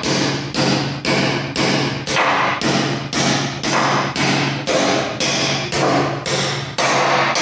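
Wooden-handled sledge hammer striking a steel wedge anchor bolt, driving it down through a lift post's base plate into its drilled hole in the concrete floor: steady, repeated blows at about two a second.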